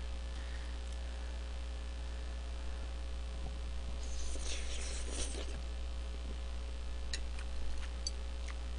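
A person slurping jjajang noodles for about a second and a half, roughly four seconds in, over a steady low hum. A few light clicks follow near the end.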